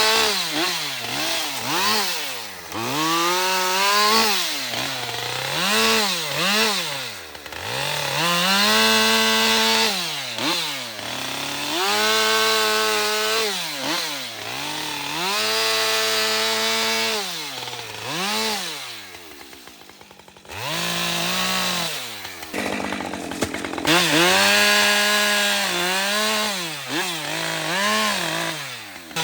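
Husqvarna 545 50cc chainsaw cutting firewood. It is throttled up to full revs for each cut and drops back toward idle between cuts, over and over, with a short lull about two-thirds of the way through.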